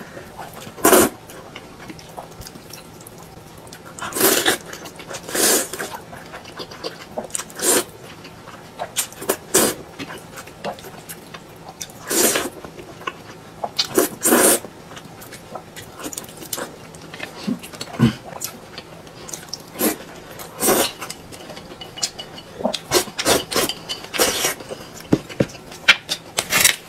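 A person slurping noodles, sucking them in with short noisy slurps every second or two, with several slurps coming close together near the end.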